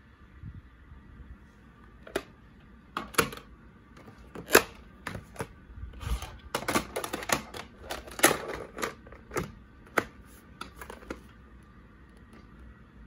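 Irregular clicks, taps and clatter of hard plastic as a VHS cassette and its clamshell case are handled and set down on a wooden dresser top. The clatter starts about two seconds in, is busiest in the middle and dies away near the end.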